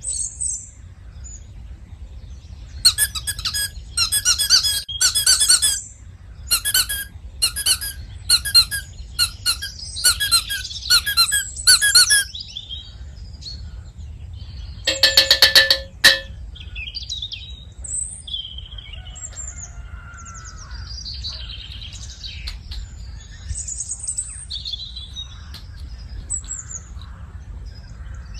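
A plastic ice-pack bag squeaking as it is squeezed and handled, in a run of short squeaks followed by one longer, higher squeak. Faint bird chirps follow.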